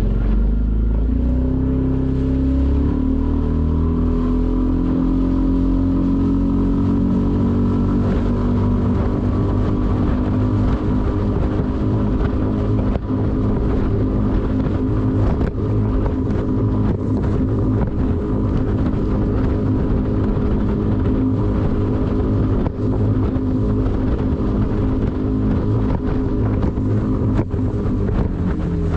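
Mercury 6 hp short-shaft outboard motor on a small skiff, speeding up: its pitch climbs over the first few seconds as the throttle opens, then holds steady at high speed while the boat planes.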